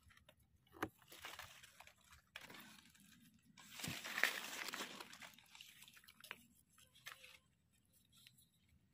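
Dry fallen leaves rustling and crackling as gloved hands clear the leaf litter around a young mushroom, with scattered small snaps; the longest, loudest rustle comes about four seconds in.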